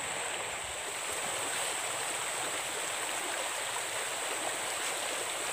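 Shallow forest river flowing, a steady rush of running water, with a steady high-pitched whine above it.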